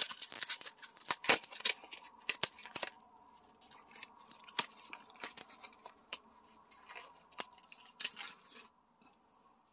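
Clear plastic packaging of gold magnetic jewelry clasps being handled and opened: crinkling with many sharp clicks, busiest in the first three seconds, then sparser clicks until it stops near the end.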